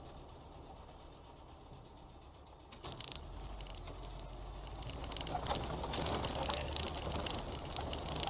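Vehicle interior noise picked up by a dashcam: a low engine hum and road noise, faint at first, that swell about three seconds in and keep building. From about halfway through come scattered rattles and knocks.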